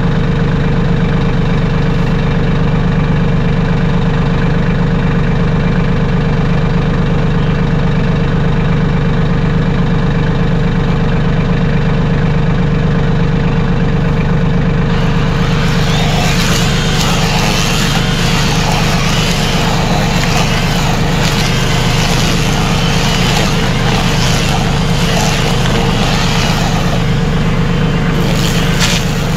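Mahindra 1626 compact tractor's diesel engine running steadily under a mowing load. About halfway through, a rushing, rustling noise joins the engine and carries on.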